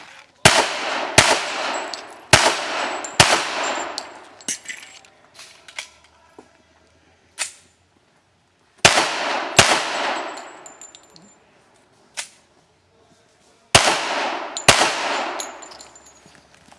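Pistol shots fired in four quick pairs, each report echoing as it dies away, with lighter cracks in between and the thin ringing of steel targets being hit.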